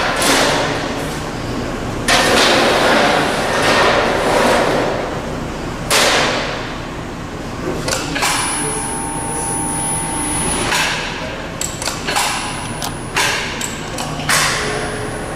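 CIDAN Futura Plus 30 sheet-metal folding machine folding a steel panel: a string of sudden metallic clanks, one every second or two, each trailing off in a rattle of sheet metal, with a steady whine from the machine's drive for a few seconds in the middle.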